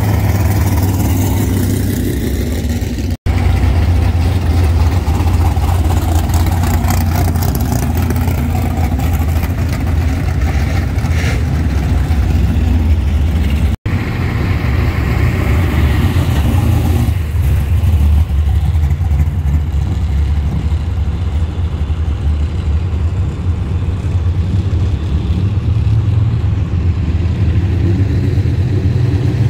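Drag race car engines idling with a deep, steady rumble as the cars roll slowly through the pits. The sound breaks off suddenly twice, at edit cuts.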